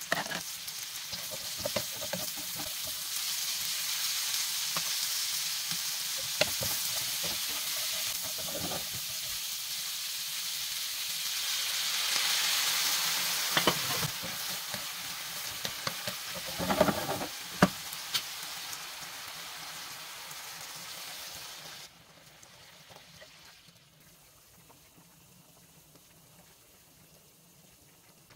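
Sliced pork, onion, carrots and green beans sizzling as they are stir-fried in a nonstick pan, with scattered knocks and scrapes of the stirring utensil. The sizzle cuts off suddenly about three quarters of the way through, leaving only a few faint clicks.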